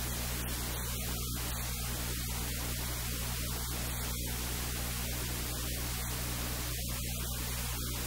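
Steady hiss with a low, even hum underneath: the recording's background noise, with nothing else sounding.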